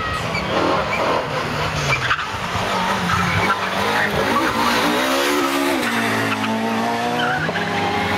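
Opel Adam rally car's engine approaching at full throttle, rising in pitch over the last few seconds. The revs drop briefly near the end, then climb again.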